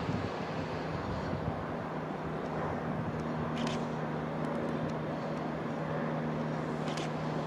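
Electric locomotive approaching slowly, running with a steady low hum, with two brief high squeals about three and a half seconds apart.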